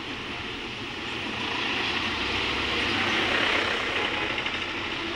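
Road traffic noise heard from a vehicle moving slowly among buses on a wet street: a steady low engine rumble under a hiss of tyres on wet road. The hiss swells from about one and a half seconds in and eases off near the end.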